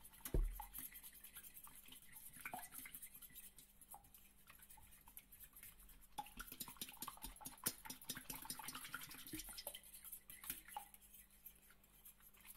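Fork beating raw eggs in a glass baking dish: rapid, steady clicking of the metal tines against the glass, with one dull knock about half a second in.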